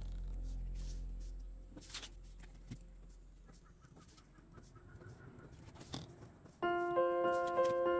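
Background music fades out over the first second or two, leaving a quiet stretch with a few faint clicks and taps from a plastic ruler and pencil moving over paper. About two-thirds of the way through, bright keyboard music starts suddenly.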